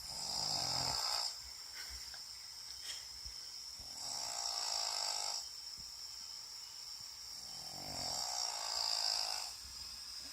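Pug snoring: three long rattling snores, each about a second and a half, spaced about four seconds apart.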